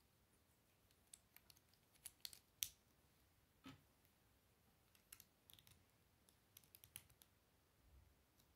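Faint small plastic clicks of Lego bricks being handled and snapped together, coming in short irregular clusters, the sharpest a little over two and a half seconds in.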